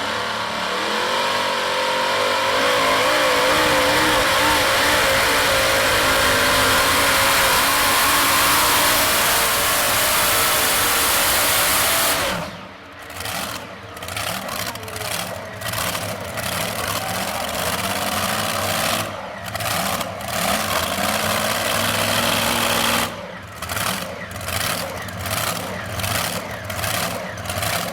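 A motor vehicle engine running loud and hard, its pitch wavering, for about twelve seconds. It then drops sharply in level and carries on as a lower, uneven rumble.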